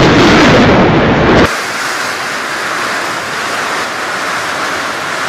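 Storm noise of heavy rain and wind: loud with a strong low rumble for about the first second and a half, then cutting suddenly to a quieter, steady hiss of rain.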